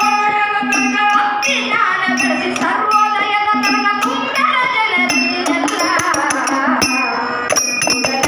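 Kannada devotional bhajan music: a woman's voice singing a gliding melody over a steady harmonium drone, with jingling tambourine-like percussion striking a regular rhythm.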